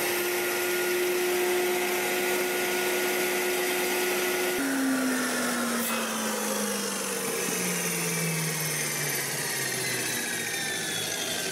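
Makita circular saw running at full speed, cutting into the timber of a windmill windshaft. It is switched off about four and a half seconds in. Its pitch then falls steadily for about five seconds as the blade spins down.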